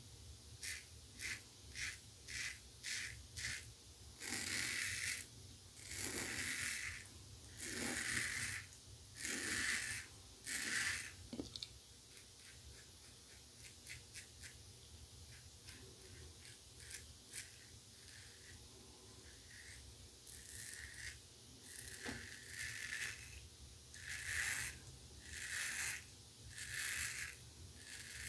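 Safety razor strokes cutting through lathered two-day stubble: a Razorock Game Changer .84P with a Gillette 7 O'clock Black blade. It opens with a quick run of short strokes, then comes five longer strokes, then a quieter stretch with only faint ticks, and more strokes near the end.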